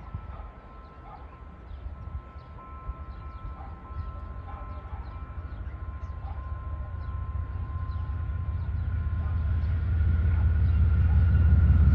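General Electric diesel locomotive approaching with a passenger train, its engine rumble growing steadily louder, over a steady whine.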